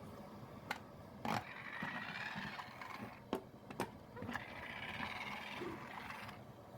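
LEGO DUPLO steam train being tried out: a few sharp clicks and two spells of hissing whir, each about a second and a half long.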